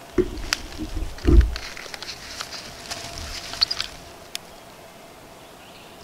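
Woodland ambience: scattered small ticks and short bird chirps, with two low thumps in the first second and a half.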